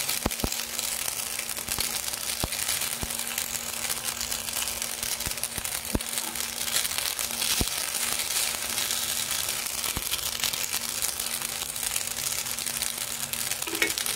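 Spaghetti and chicken masala sizzling in a frying pan, a steady hiss, while silicone-tipped tongs lift and toss the noodles, with a few scattered light clicks of the tongs against the pan.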